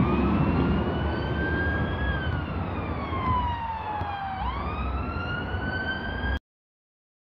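Emergency vehicle siren wailing, one tone sweeping up and down about every four seconds over a low rumble of traffic; it cuts off suddenly near the end.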